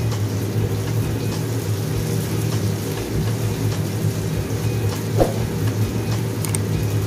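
Milkfish fillet and ginger strips sizzling as they fry in a wok, over a steady low hum.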